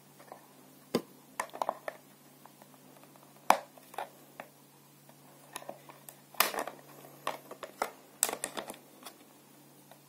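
Irregular plastic clicks and taps as a black plastic grille is pushed and twisted against the open end of a white PVC pipe, not yet seating. The clicks come in small clusters, the loudest about three and a half seconds in and again around six and a half seconds.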